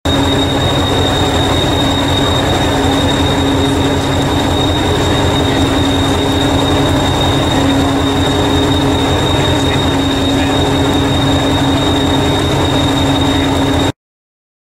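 Diesel engine of preserved Hastings diesel-electric multiple unit 1001 running steadily, with a fast-pulsing low rumble and a constant high whine. It cuts off suddenly near the end.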